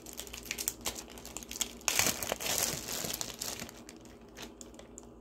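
Thin plastic zip-top bags crinkling and rustling as they are handled, while a small bag of chopped onion is pulled open. The rustling is louder and busier about two seconds in.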